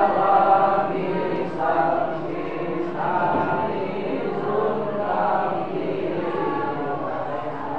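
A group of men chanting together in unison, singing long drawn-out phrases one after another.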